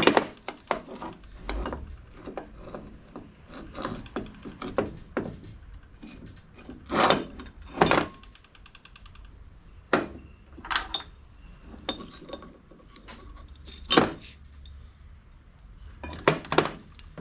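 Metal parts and hand tools clinking and knocking as the parts of a skid steer's quick-attach coupler are handled and fitted by hand. The knocks are irregular, with the loudest at about seven, eight, ten, fourteen and sixteen seconds in.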